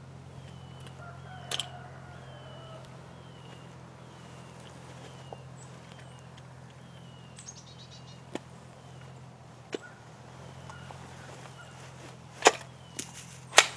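Sharp clicks and clacks from a Hi-Point .40 carbine being handled after a round fails to fire. The loudest come near the end. A short high chirp repeats about once a second underneath.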